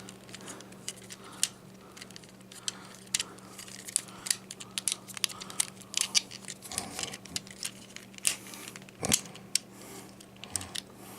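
Plastic Transformers action figure being handled and transformed: irregular small clicks and snaps as joints are turned and parts are pressed into place.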